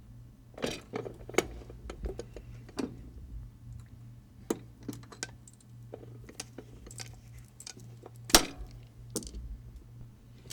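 Metal die parts of a skate riveting machine clicking and clinking as the eyelet-setting die is handled and brought down, with one loud sharp metallic clank about two-thirds of the way through, over a steady low hum.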